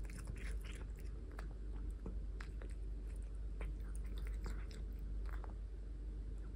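Persian chinchilla cat eating shredded cooked chicken breast, close up: irregular wet chewing and licking clicks, several a second, over a steady low hum.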